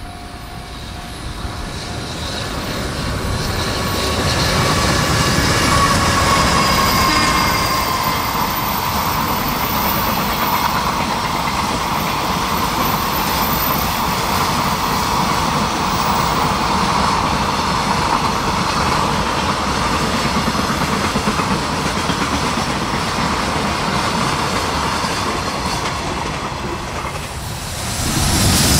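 JR Freight EH500 electric locomotive approaching and sounding its AW-5 typhon horn about six seconds in. A long train of container wagons then rolls past in a steady rumble of wheels on rail.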